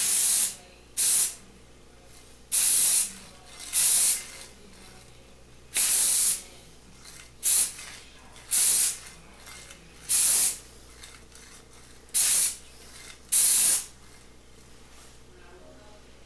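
Primer sprayed in about ten short bursts, each under a second, with pauses between as the part is turned.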